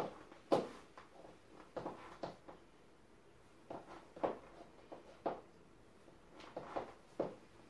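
White platform stiletto heels clicking on a laminate floor as the wearer shifts and steps in place: a slow, irregular series of sharp heel taps, the loudest about half a second in.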